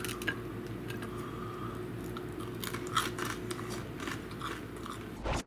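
A person chewing a bite of toasted English muffin, with scattered small crunches and mouth clicks over a steady low room hum. A short burst of noise comes right at the end.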